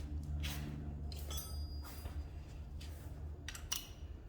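Hand tools being handled at a truck's wheel hub: a few scattered clicks and metallic rattles over a steady low hum.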